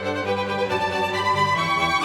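Music led by violin, with held bowed notes that change pitch about a second and a half in.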